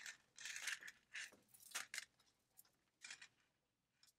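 Faint clicking and rustling of a beaded cord necklace being handled, small beads knocking together. The clicks come in a cluster over the first two seconds, with a couple more about three seconds in.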